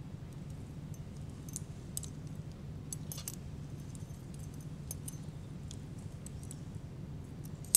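Steel surgical instruments (forceps and needle holder) clicking and clinking lightly against each other while a suture is placed, with one sharper click near the end, over a steady low hum.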